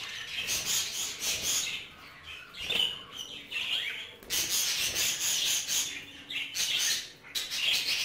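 Budgerigars chirping and chattering in repeated bursts of high twittering.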